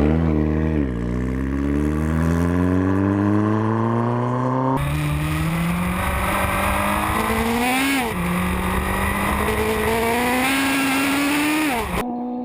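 Land speed record motorcycle engine accelerating hard at full throttle, its pitch climbing steadily through the gears, with upshifts about eight seconds in and near the end.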